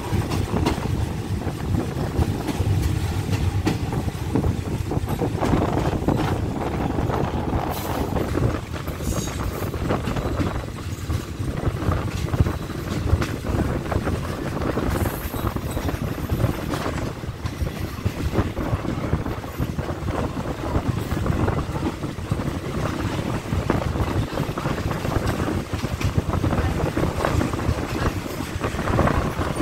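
Running noise of an ordinary passenger train under way, heard from inside the carriage at an open window: a steady rumble of wheels on the rails mixed with wind rushing past.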